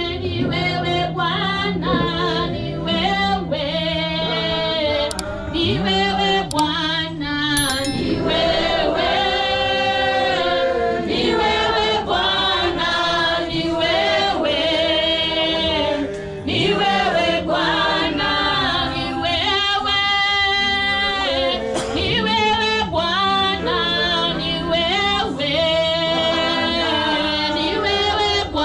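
A church praise and worship team singing a gospel song together as a choir, with several voices in harmony throughout.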